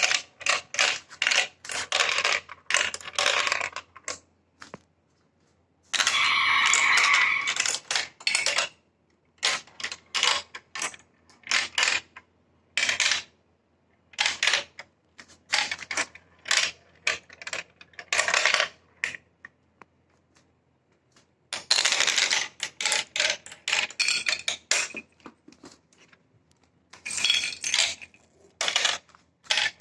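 Marbles rolling and clattering down a plastic marble-run track: rapid clicks and rattles in runs of a few seconds, with short quiet gaps between them.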